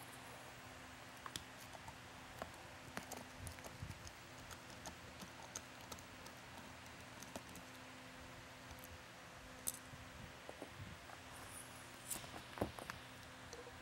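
Faint scattered clicks and scrapes of a screwdriver backing out the flat-head screws that hold a siren speaker's driver to its metal mounting bracket, with a few sharper clicks near the end. A steady low hum runs underneath.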